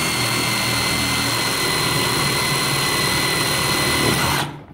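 Power drill running at steady speed, boring a screw hole through the e-bike battery's mount, with a steady high whine over the cutting noise; the drill stops near the end.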